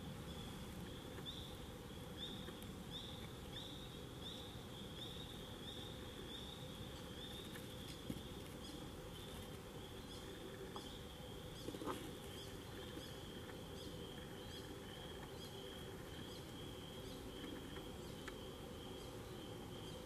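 Tree frogs calling in a steady, high-pitched chorus. Through the first several seconds, a run of short rising notes repeats a little under twice a second.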